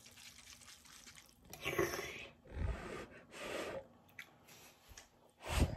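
A person eating instant cup noodles close to the microphone: several short slurps and chewing sounds, with a louder slurp near the end.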